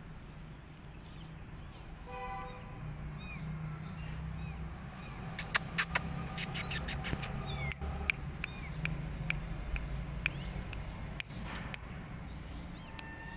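A kitten meows once, briefly, about two seconds in. A quick run of sharp clicks, the loudest sounds, follows from about five to seven seconds, with small chirps scattered through and a low steady hum underneath.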